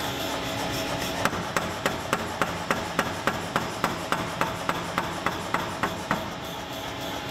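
A power hammer striking a hot steel carving-axe blank in a rapid, even run of about three to four blows a second. The run starts about a second in and stops about a second before the end.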